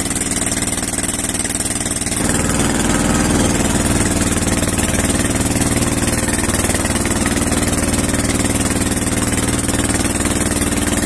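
Small wooden boat's engine running steadily, picking up revs about two seconds in and holding at the higher speed as the boat pushes through thick water hyacinth.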